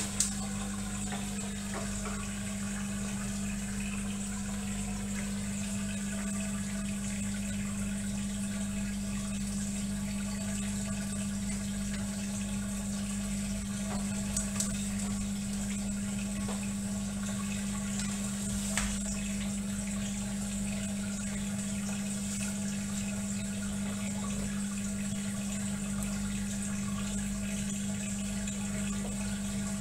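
Indesit front-loading washing machine with water running through it and a steady low machine hum, after its intermediate spin. There are a couple of light clicks partway through.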